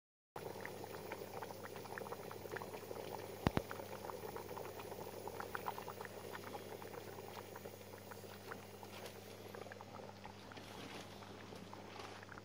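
Thick paprika tripe stew simmering in an enamelled cauldron over a gas ring, bubbling with many small pops over a steady low hum. One sharp knock about three and a half seconds in.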